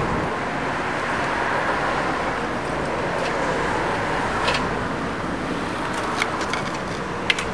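Steady wash of street traffic noise, cars passing on a wet road, with a few sharp clicks and knocks from the camera mount being handled, about halfway and again near the end.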